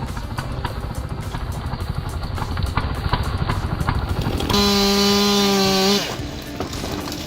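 Rough, rattling machine noise, then a loud, steady, pitched drone for about a second and a half that stops suddenly about six seconds in.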